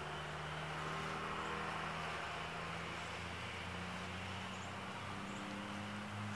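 A steady low motor hum whose pitch drifts slowly.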